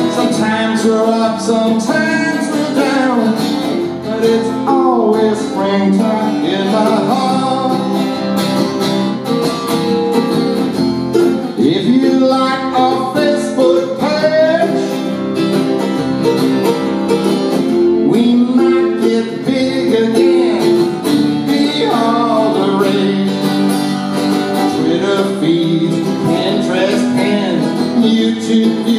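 Live country-style song: a strummed acoustic guitar with a man singing over it.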